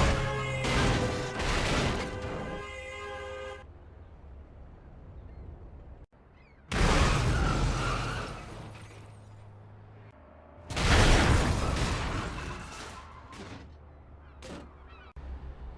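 A string of three staged car crash sound effects, each a loud impact with shattering glass and debris that dies away over a few seconds. They are cut one after another, and a steady pitched tone rings through the first crash.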